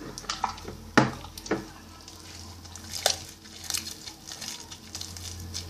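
Homemade borax slime being squished and worked by hand in a bowl. There are a few sharp clicks in the first second and a half and another about three seconds in, then a run of small sticky crackles.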